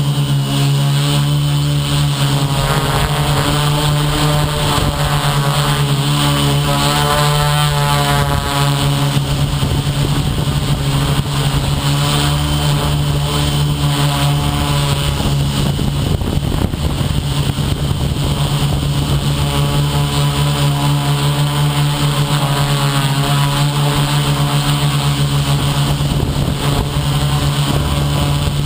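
Electric motors and propellers of a small FPV radio-controlled aircraft in flight, a steady drone whose pitch wavers up and down with the throttle, over a constant hiss.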